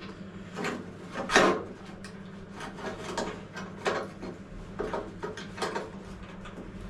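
Clamps and the steel sill section being handled and repositioned: irregular clanks, knocks and scrapes, the loudest about one and a half seconds in, over a steady low hum.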